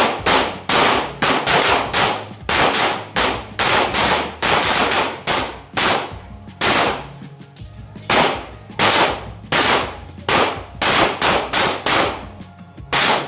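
Handgun firing rapid strings of shots, about two to three a second, with a few brief pauses between strings.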